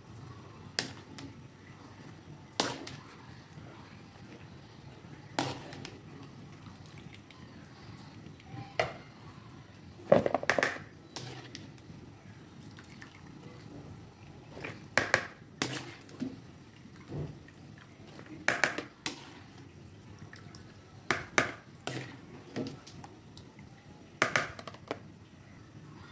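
A wire mesh strainer scooping cabbage out of a hammered aluminium pan of water, clinking and tapping against the metal pan every few seconds, with water splashing and dripping back into the pan between the taps.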